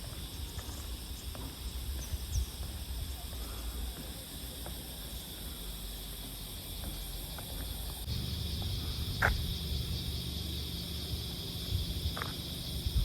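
Steady high-pitched drone of insects, typical of a tropical cicada or cricket chorus, over a low rumble of wind or handling noise, with a few sharp clicks. It grows louder about eight seconds in.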